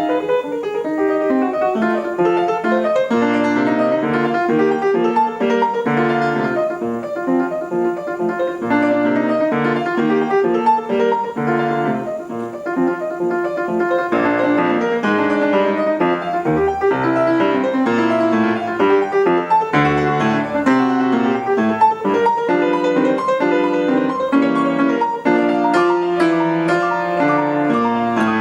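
Solo piano playing a quick, continuous stream of notes, with a bass line moving under busy runs in the middle register.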